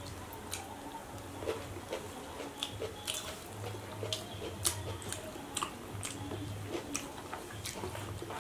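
Close-up eating by hand: chewing, with scattered soft clicks and smacks of mouths and fingers working fried fish, rice and boiled egg.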